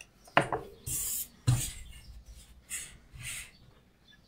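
Hand-handling sounds of rubber stamping: a knock, a short scrape, a thump as the inked clear stamp is set down and pressed onto the card, then softer paper rustles.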